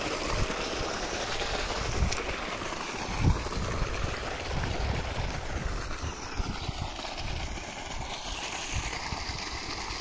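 Steady rush of water gushing from a solar pump's discharge pipe, mixed with wind buffeting the microphone. Irregular low thumps from the phone being handled while walking, the loudest about three seconds in.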